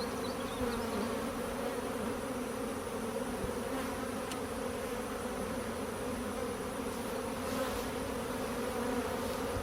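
Many honey bees buzzing around an opened, knocked-over hive as it is taken apart: a steady, continuous hum.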